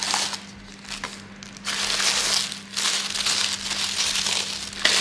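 White tissue paper crinkling and rustling as it is pulled out of a cosmetics gift box. It comes in a few bursts, with the longest near the end.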